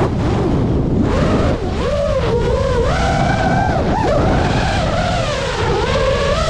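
Small FPV drone's electric motors and propellers whining, the pitch rising and falling constantly with the throttle as it swoops low, with a dip about a second and a half in and a sharp wobble near four seconds. A steady low rumble of wind on the onboard microphone runs underneath.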